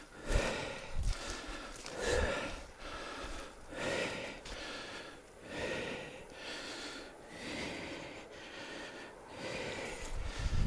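A person breathing heavily and hard, a loud breath roughly every two seconds, after running about on foot.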